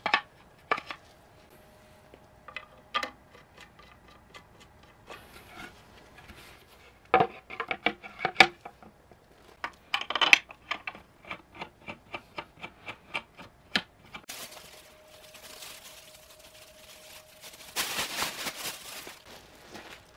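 Wooden parts of a camping stand clicking and knocking as they are fitted together, with a run of quick light taps in the middle. Near the end, canvas fabric rustles as a canvas bag is hung on a wooden frame.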